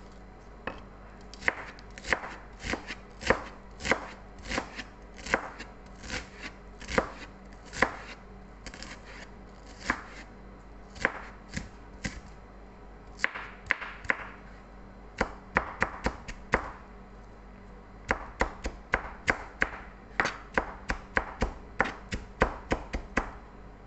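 Kitchen knife chopping onion on a plastic cutting board: a series of sharp knocks as the blade strikes the board, irregular at first, then a quicker run of chops in the last quarter as the onion is minced fine.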